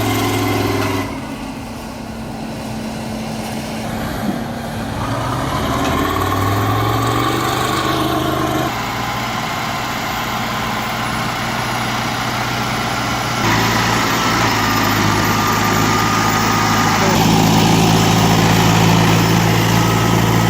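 Heavy diesel engines of off-road logging machines running under load across several short clips, one revving up about five seconds in.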